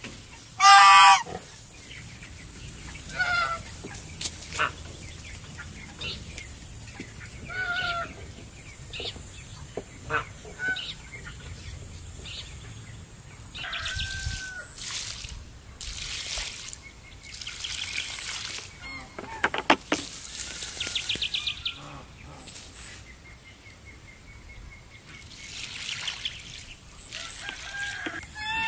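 Geese honking, with other poultry calling now and then; the loudest honk comes about a second in. In the second half, water poured from a plastic bucket splashes and trickles onto soil.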